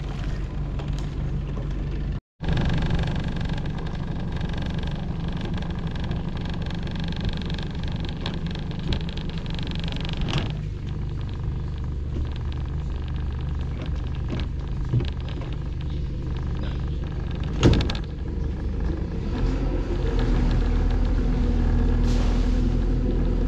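Engine running steadily with a low rumble. It drops out to silence for a moment about two seconds in, there is a single sharp knock about three-quarters of the way through, and the rumble grows louder near the end.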